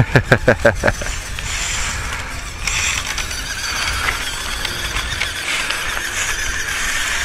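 A small electric motor and gearbox of a WPL C-14 1/16 RC crawler truck running with a steady whine, its tyres crunching over the gravel path, heard close up from the truck's onboard camera. It opens with a quick run of about seven short, sharp pulses in the first second.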